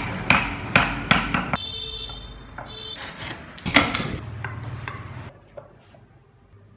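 Hammer knocking in woodworking: sharp taps about every third of a second for the first second and a half, and another cluster of strikes around three to four seconds in, then the sound dies away.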